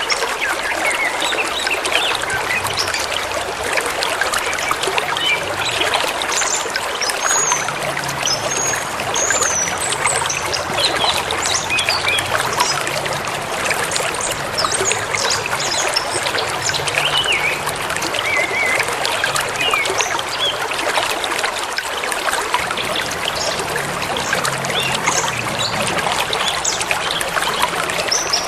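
River water flowing steadily, with songbirds chirping and calling on and off above it.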